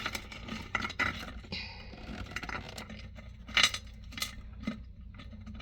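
Plastic toilet-tank parts being handled and fitted together: scattered light clicks and scrapes, with one sharper click about three and a half seconds in.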